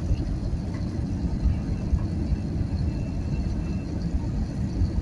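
Steady low rumble of engine and airflow noise heard inside the cabin of an Airbus A320neo airliner descending on approach to land.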